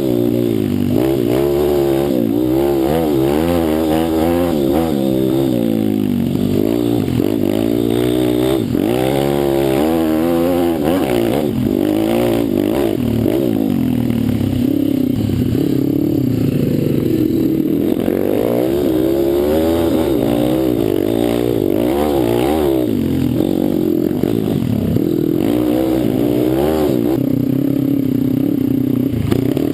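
Pit bike engine revving up and down over and over as the bike is ridden, its pitch climbing and dropping every second or two.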